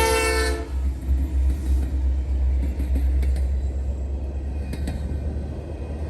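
A diesel freight locomotive's air horn sounds and cuts off just over half a second in, leaving the low, steady rumble of the passing train with a few faint clicks from the wheels.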